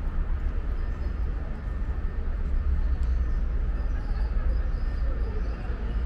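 City street traffic: a steady low rumble of vehicles on the avenue, with faint engine tones shifting near the end.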